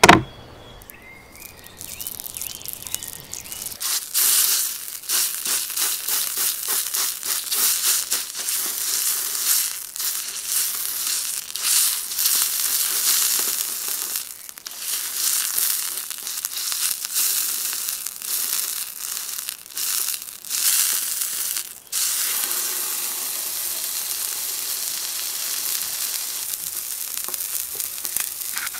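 A single sharp thump at the start. From about two seconds on, a thick ribeye steak sizzles in hot oil on a steel flat-top griddle: dense crackling and spitting over a hiss, which settles into a steadier sizzle in the last few seconds.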